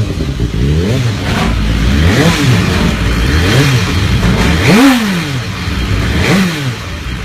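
Motorcycle engine revved in five quick throttle blips, each rising and falling in pitch, over a steady idle; the loudest blip comes about two-thirds of the way through.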